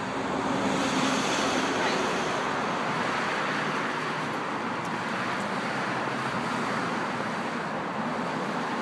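Steady road traffic noise: a continuous, even hiss of passing vehicles.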